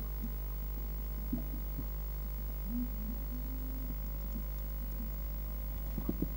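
Steady low electrical hum from the recording setup, with a few faint clicks and taps as a Kuhl's pipistrelle bat feeds and shifts about on a dish of larvae. A small cluster of clicks comes near the end.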